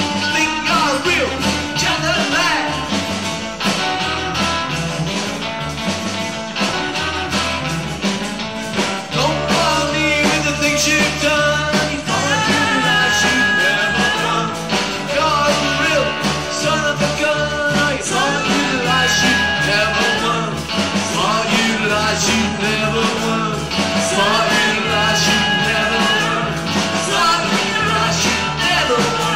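Live band music in a rock-and-roll/blues style: acoustic guitars over a steady bass, with a lead line of long held high notes recurring every few seconds.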